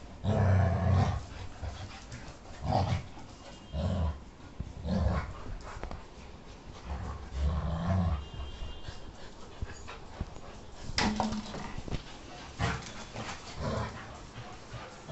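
Dogs growling in short, irregular bursts, the first and loudest lasting about a second. These are play growls during a tug-of-war with a cloth gripped in their teeth.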